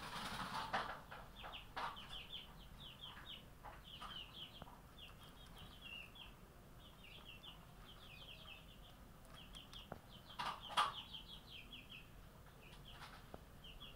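A cat eating dry kibble from a steel bowl, with louder crunches or bowl clicks about half a second in and again around ten and a half seconds. Quick runs of high chirping carry on throughout.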